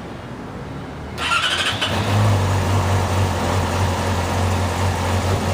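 2009 Yamaha R6's inline-four engine being started: the starter cranks about a second in, the engine catches within a second and settles into a steady idle.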